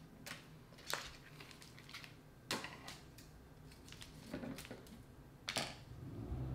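Scissors snipping open a plastic frozen açaí pack, heard as a few sharp clicks and light handling noises, the loudest about two and a half and five and a half seconds in.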